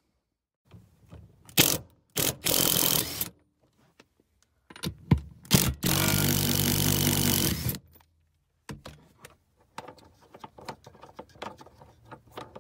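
Cordless impact driver running on the rear-seat mounting nuts, zipping them loose in two runs: a short one about two seconds in and a longer one of about two seconds near the middle. A few sharp clicks come before the runs, and light metallic clicks and rattles from handling the loosened nuts and seat bracket come after them.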